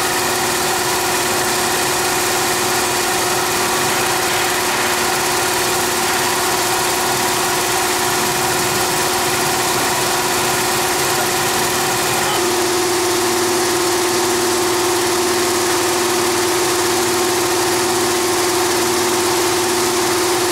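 Sugar-coating machine running with a steady mechanical hum, under the hiss of compressed air driving the spray gun's nozzle as it atomizes coating liquid into the pan. The hum steps up a little about twelve seconds in.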